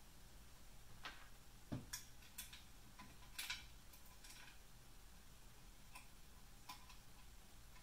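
Faint, scattered clicks and a light knock of metal parts being handled as screws are fitted through a CNC frame side plate into aluminium extrusions, over a faint low hum.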